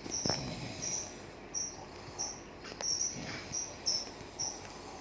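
Insect chirping: short, high chirps repeating about twice a second.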